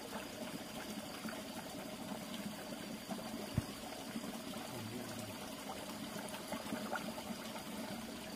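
Water of a small rocky stream running and trickling steadily, with one sharp knock about three and a half seconds in.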